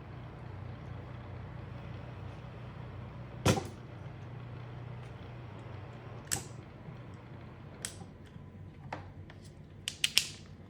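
Plastic clicks and knocks from a portable fan's covers being handled and taken apart, the sharpest about three and a half seconds in and a quick cluster near the end, over a steady low hum.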